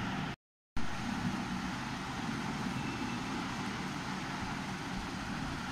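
Steady rushing background noise with no clear events, dropping out to silence for a moment a little under a second in.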